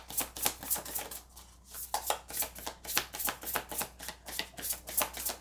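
A deck of cards being shuffled by hand: a quick, even run of card slaps and taps, several a second, with a short pause a little over a second in.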